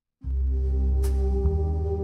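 Slow, dark doom-jazz track playing back on a hi-fi system: after a brief silent gap it starts again with a deep held bass and sustained tones, and a single sharp high accent about a second in.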